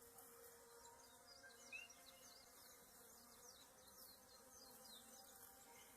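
Faint, steady buzzing of honeybees on the combs of an open top-bar hive, with a few faint, short, high chirps.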